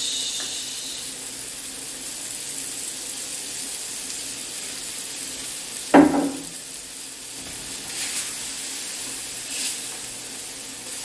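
Oat farofa with sausage and bacon sizzling steadily in a frying pan over a gas flame, the sizzle flaring as olive oil is poured in at the start. A single sharp knock sounds about six seconds in, and a wooden spatula scrapes through the mixture near the end.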